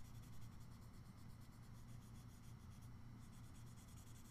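Faint rubbing of a paper blending stump over graphite on drawing paper, in rapid repeated short strokes, over a low steady hum.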